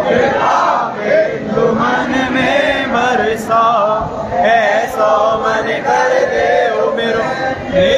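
A group of voices chanting a Hindu devotional song, with a man's voice leading over a microphone.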